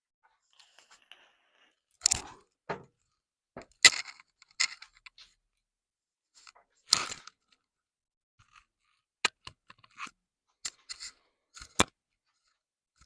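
Hands handling the parts of a switched-off jointer-planer combo: irregular knocks, clacks and short scrapes, the loudest about two, four and seven seconds in, then a quick run of sharp clicks near the end.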